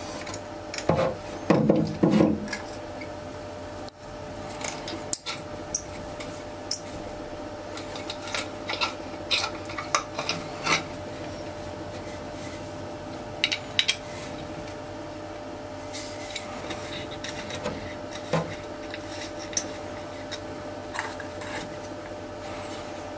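Small metal parts of a toilet ball-tap fill valve being handled and taken apart by hand and with a screwdriver, to replace its washer: scattered clicks, taps and short metal scrapes, with a louder spell of rubbing and scraping about two seconds in. A faint steady hum runs underneath.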